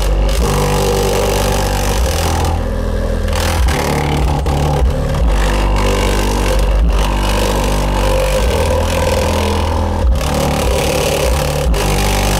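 Digital Designs DD1508 8-inch car audio subwoofer playing a song's bass line loud. Heavy low notes change every second or two.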